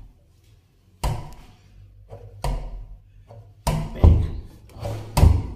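A wooden door bumping and thumping against its frame about six times as it is pushed to close. It sticks on the frame and will not shut.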